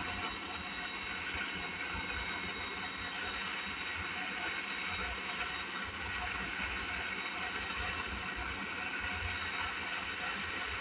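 Micro lathe driven by a 24-volt DC motor on a pulse-width-modulated speed control, running steadily with a whir and several thin high steady tones.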